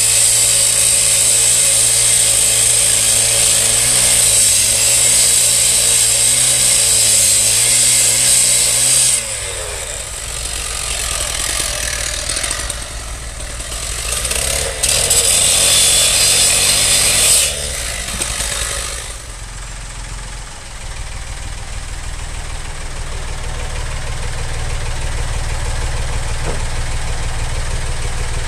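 Husqvarna K760 petrol disc cutter grinding through a scrap steel tube, one long cut of about nine seconds and a shorter cut of about three seconds a little past halfway. In the last third a David Brown tractor's engine runs steadily, slowly getting louder as the tractor comes closer.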